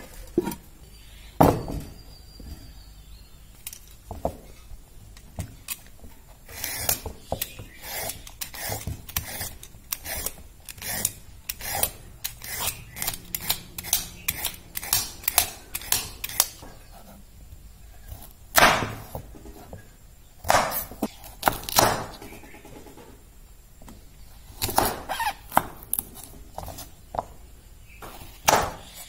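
A knock on a wooden chopping board, then a vegetable peeler scraping down a raw carrot in quick repeated strokes. Later a kitchen knife cuts through the carrot in separate strokes that knock on the board.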